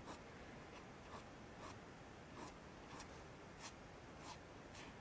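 Faint scratching of a green coloured pencil on paper in short repeated strokes, about two a second, going over and over the hair lines of a sketch.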